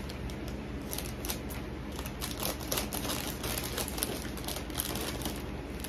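Snack packaging being handled: irregular crinkling and light clicking throughout, over a low steady hum.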